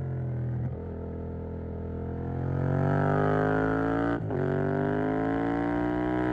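Yamaha MT-07's 689 cc parallel-twin engine through a Mivv GP Pro stainless exhaust, accelerating hard. It upshifts just under a second in and again about four seconds in, the pitch climbing steadily between the shifts.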